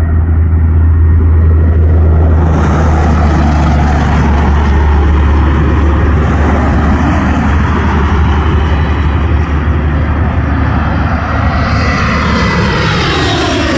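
Embraer E175's twin General Electric CF34-8E turbofan engines on landing approach: a loud, steady jet rumble that grows hissier as the airliner comes in low overhead, with the pitch sweeping downward near the end as it passes.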